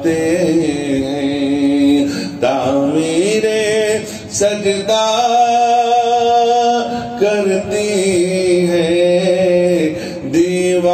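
A man singing an Urdu naat into a microphone, drawing out long, held notes that step up and down in pitch, over a steady low drone.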